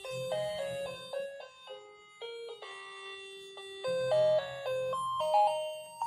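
Electronic doorbell chime rigged as a door alarm, playing a tune of clean electronic notes that step up and down in pitch.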